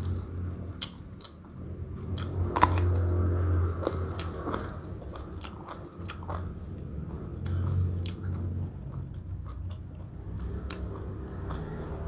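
A person chewing and biting mouthfuls of nam tok moo (spicy grilled pork salad) with sticky rice, with many small crunchy clicks from the chewing.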